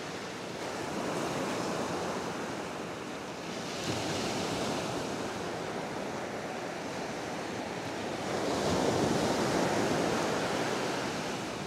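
Sea waves breaking and washing up the beach, swelling and easing in slow surges, with the biggest surge near the end, and some wind.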